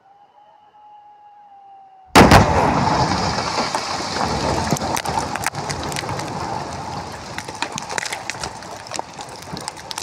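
Explosive blast in a rock from charges set in drilled holes, going off suddenly about two seconds in with a loud bang. It is followed by a long rumble and many sharp cracks of falling rock and debris that slowly die away. A faint, slightly falling tone is heard before the blast.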